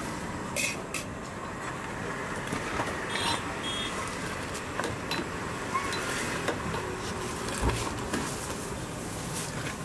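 A steel ladle scooping boiling milk tea from a large aluminium pot and pouring it back in, with scattered clinks and knocks of the ladle against the pot, over steady background noise.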